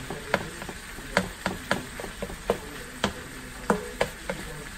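Silicone spatula knocking and scraping against a nonstick skillet while stirring ground meat frying in it, irregular knocks two or three a second over a faint sizzle.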